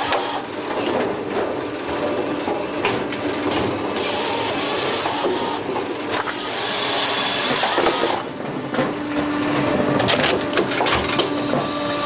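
Palax KS35 firewood processor running: a steady mechanical clatter with frequent short knocks of wood, and a brighter hiss for about two seconds near the middle.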